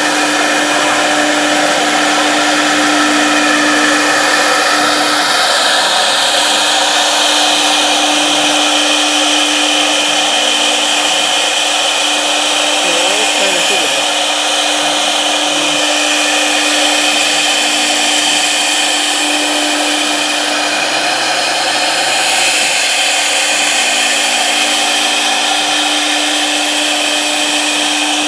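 1325 CNC router's spindle running, a steady whine over continuous machining noise, with small shifts in tone as the machine moves.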